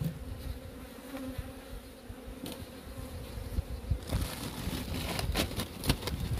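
Honeybees buzzing in a steady hum over open hives full of frames. From about four seconds in, a run of clicks and knocks as the hive covers and frames are handled.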